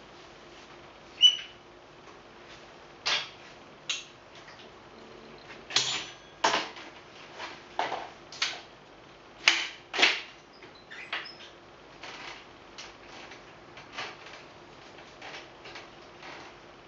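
Strida LT folding bicycle being folded by hand: a string of clacks and clicks as the frame tubes and fittings swing together and knock, with a bright ring about a second in. Lighter ticking through the second half.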